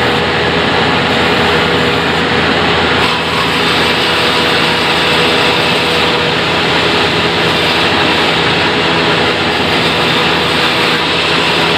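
Sawmill running steadily and loudly while sawing acacia wood: a continuous dense machine noise with a steady hum underneath.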